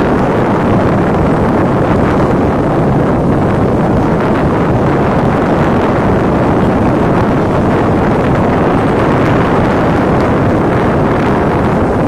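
Steady, unbroken running of a John Deere 5104 tractor churning a flooded paddy field with its rotary tiller, mixed with wind buffeting the microphone.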